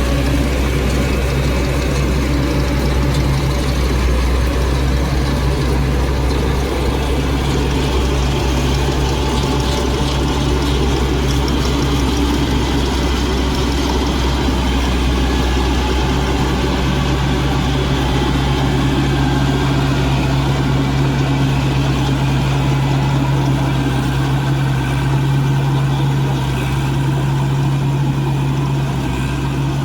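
Combine harvester's diesel engine running steadily under load, a continuous low drone.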